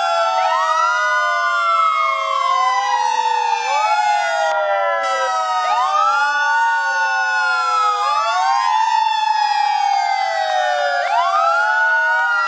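Several fire engine sirens wailing at once, out of step with one another, each rising and falling slowly so that their pitches overlap and cross.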